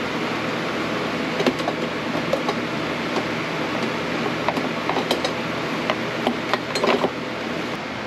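Scattered clicks and light knocks of an electric unicycle's plastic shell parts being handled and fitted, with a quick flurry of knocks near the end, over a steady whirring fan.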